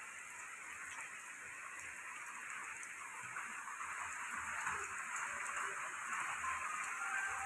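Heavy rain falling steadily, an even hiss of rain on the ground and roofs, growing a little louder toward the end.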